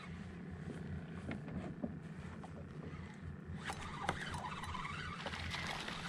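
A steady low rumble, then, a little over halfway through, a crackling rush of water splashing as a hooked speckled trout thrashes at the surface.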